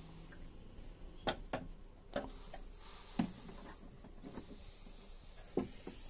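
Plastic water tank and float flap of a SANG PD12-DAR dehumidifier being handled: about six sharp plastic clicks and knocks spread over a few seconds, with a short rustle in the middle.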